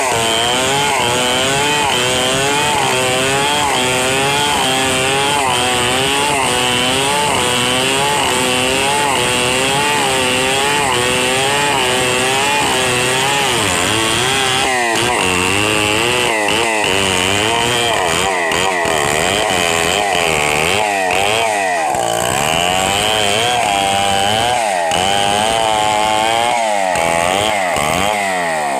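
Stihl 070 two-stroke chainsaw running hard while ripping a log lengthwise into boards. Its engine pitch rises and falls in a steady rhythm under the load of the cut, about once a second, with the swings getting quicker and deeper about halfway through.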